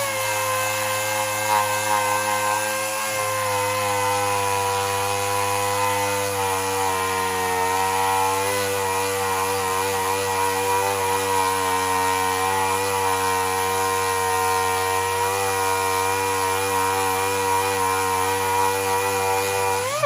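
Handheld electric power tool running steadily at high speed, abrading an alloy wheel to strip balance-weight adhesive pads and corrosion: a steady whine over a rough grinding hiss. At the very end it is switched off, and the pitch drops quickly as it winds down.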